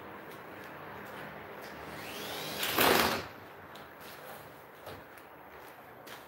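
Cordless drill-driver whirring, building up to a short, loud burst with a rising whine about three seconds in, then dropping back to a low hum.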